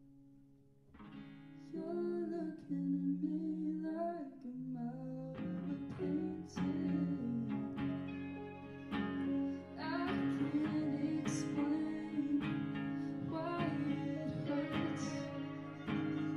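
Live band playing a song: a woman sings over guitar, and about five seconds in the rest of the band comes in fuller, with acoustic and electric guitar, violins, piano and drums.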